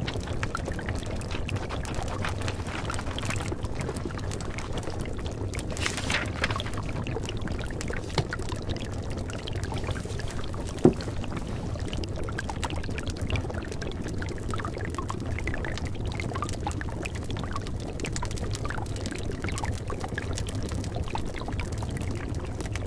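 Steady rushing, pouring-water sound with scattered faint ticks and one sharp click about eleven seconds in.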